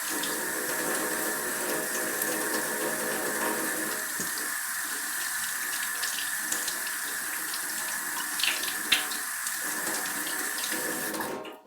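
Kitchen sink tap running while hands are washed under it, with a few splashes; the tap is turned off near the end.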